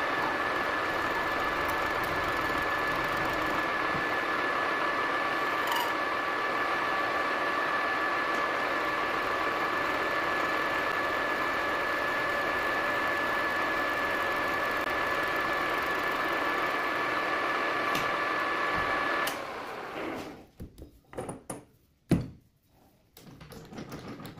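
Metal lathe running with a steady whine from its drive while the spinning chuck turns the workpiece under the cutting tool. About nineteen seconds in the lathe is switched off and the sound dies away, leaving a few knocks and clicks, one of them sharp, as the chuck is handled.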